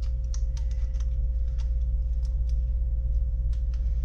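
Light clicks and taps of a plastic handheld audio recorder being handled and turned over, scattered irregularly over a steady low hum.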